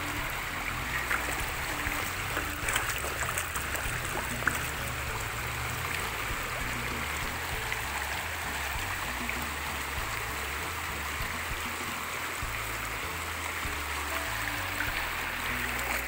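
Shallow mountain stream rushing steadily over rocks, with a few sharp knocks of stones in the first few seconds.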